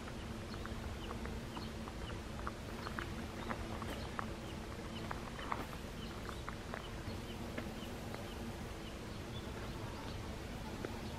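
Steady humming of bees working a flowering linden tree, with many short bird chirps scattered over it.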